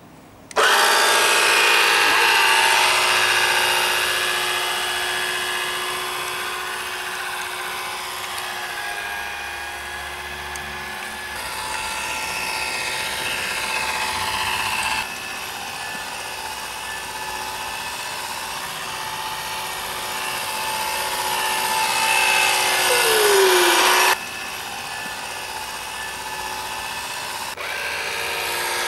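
Small electric motor of a Nikko Sea Racer RC speedboat running with a high-pitched whine. It starts suddenly about half a second in. The loudness drops abruptly twice, once around halfway and once shortly after a brief falling whine.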